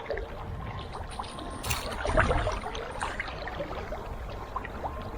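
Creek water running and splashing over rocks, with many small irregular splashes and a louder splash about two seconds in.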